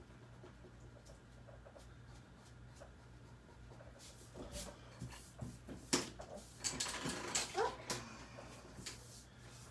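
Drawing strokes on paper. About halfway through, louder rustling and sliding of paper sheets begins, with a sharp tap and a short rising squeak near the end.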